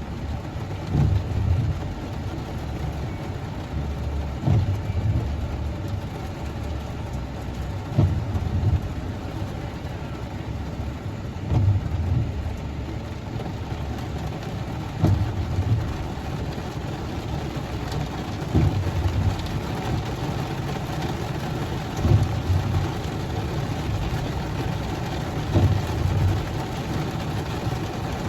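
Car driving: steady road and engine noise, with a low thump recurring about every three and a half seconds.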